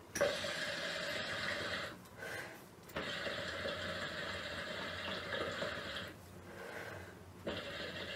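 Water bubbling in the glass base of a Muvo 502 Nano stainless-steel hookah as smoke is drawn through the hose: three long pulls, the first under two seconds, the second about three seconds, the third starting near the end.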